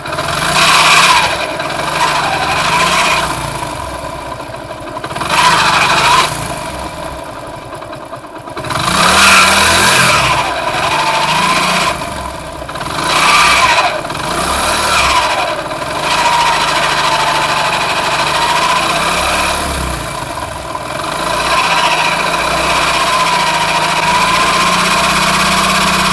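Hero Splendor Plus single-cylinder four-stroke engine running in gear with the clutch let out, revved up and down several times in the first half and then held steady, with a grinding growl from inside the engine. The mechanic takes it for something breaking in the clutch chamber or magneto side; grit and rust in the clutch chamber turn out to be the cause.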